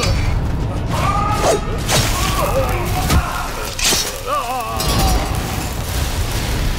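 Action-film soundtrack of crashes and sharp impacts, with wavering high-pitched cries twice and music underneath.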